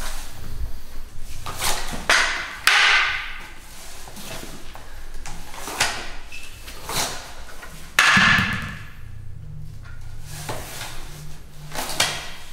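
Handling and movement sounds of sword-drawing practice: wooden swords sliding in and out of scabbards, training clothes rustling and knees shifting on the mats. Several sudden louder sounds stand out, around two seconds in and again around eight seconds in.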